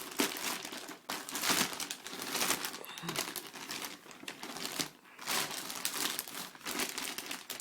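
Plastic wrapping crinkling and rustling as it is pulled off a mixing desk by hand. The rustles are irregular, with short pauses about a second in and again near five seconds.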